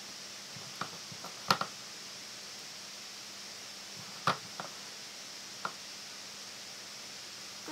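Hands shaping small balls of sticky yeast dough and setting them in a glass baking dish: several short soft taps and clicks, the loudest about one and a half seconds in and again a little past four seconds, over a steady hiss.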